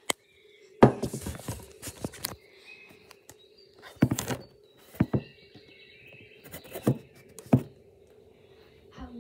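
Thumps, knocks and rustling from a handheld phone being jostled close to its microphone as the person moves, in irregular clusters over a faint steady hum.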